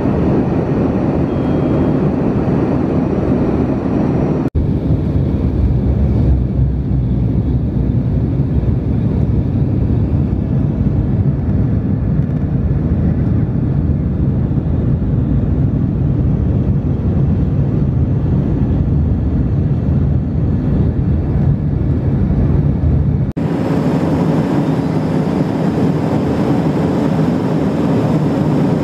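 Airliner cabin noise on approach: a steady, loud rumble of engines and airflow heard from inside the cabin. The noise changes abruptly about four and a half seconds in and again about five seconds before the end.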